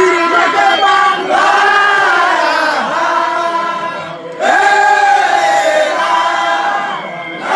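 Sufi zikr: a group of men chanting together in long, drawn-out sung phrases, with a new phrase starting about four seconds in.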